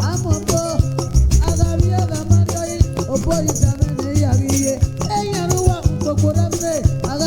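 Nigerian highlife band playing a passage without lyrics: melodic guitar lines over a steady bass line and a busy, even rhythm of shaker and other percussion.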